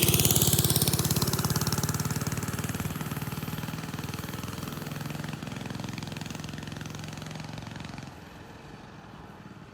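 Mini bike's small engine running fast, its pulsing note easing off gradually, then dropping to a quieter, lower running about eight seconds in.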